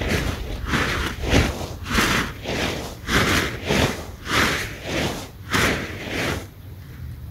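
A large tarp flapping and rustling as it is shaken hard by hand, about two swishes a second, stopping about six and a half seconds in. A low wind rumble on the microphone runs underneath.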